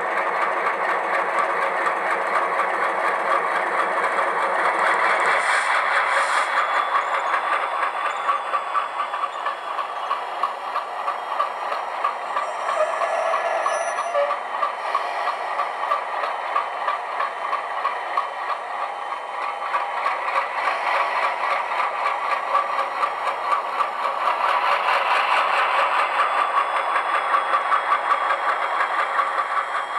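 Sound decoder (LokSound Select) in an HO-scale Bowser ALCO C-628 model diesel locomotive playing its recorded ALCO diesel engine sound through a high-bass speaker, running steadily while the model moves along the track. The sound thins about five seconds in and swells again near the end.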